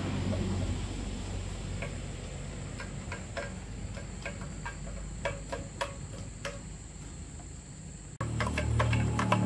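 Insects chirping steadily over a low hum, with scattered light clicks and taps; about eight seconds in it cuts to a louder, low, steady sound.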